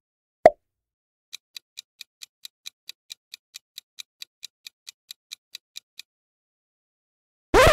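Quiz countdown-timer sound effect: a single pop, then a light clock-like ticking about four or five times a second for roughly five seconds that stops abruptly. A louder popping sound effect begins just before the end.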